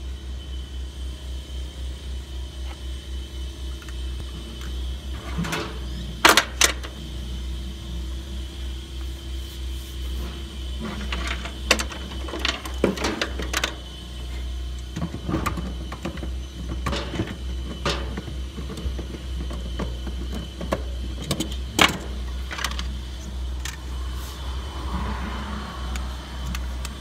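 Scattered clicks and knocks of hand tools and plastic irrigation fittings being handled, over a steady low rumble. Near the end a short scraping as black poly pipe is cut with a ratchet pipe cutter.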